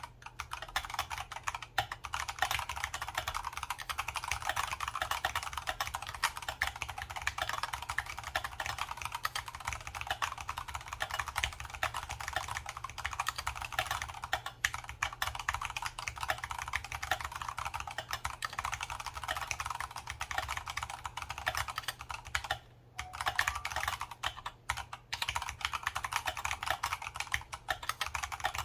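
Continuous fast typing on an Archon FX2 mechanical keyboard with Kailh Brown tactile switches, a dense stream of key clicks that stops briefly about three-quarters of the way through.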